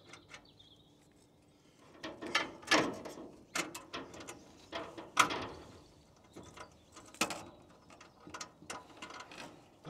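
Ratchet spanner tightening a bolt on an aluminium solar mounting rail to fix the earth cable: irregular metallic clicks and clinks, a few louder ones in the middle.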